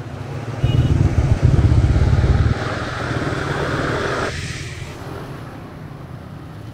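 Riding a motorcycle in slow traffic: heavy wind rumble on the camera microphone for about two seconds, then a swelling rush of road and wind noise that cuts off abruptly about four seconds in.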